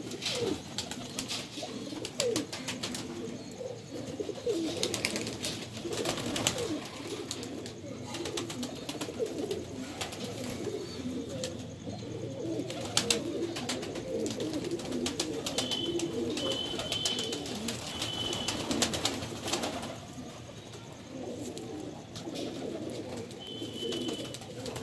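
Several domestic pigeons of the Madrasi flying breed cooing at once, a continuous low warbling of overlapping calls, with scattered sharp clicks and knocks.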